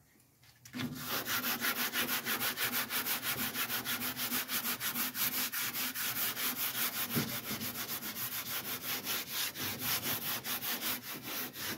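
Wet sanding by hand: an epoxy-primed car panel being flatted back with abrasive paper, in rapid, even back-and-forth strokes of about five a second, starting just under a second in.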